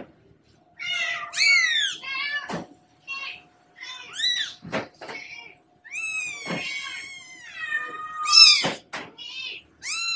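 Very young kittens mewing: a string of short, high-pitched, rising-and-falling cries, some overlapping, loudest a little past eight seconds in, with a few brief knocks in between.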